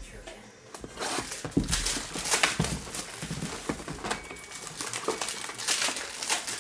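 Plastic shrink wrap and a cardboard trading-card box being opened by hand, then foil card packs handled, with irregular crinkling and rustling that starts about a second in.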